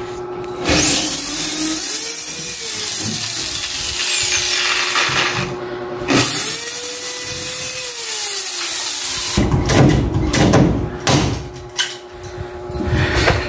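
Corded electric drill boring into a PVC ceiling panel in two runs of about three seconds each, whining up to speed and winding down after each. It is followed near the end by a few seconds of irregular knocks and clatter.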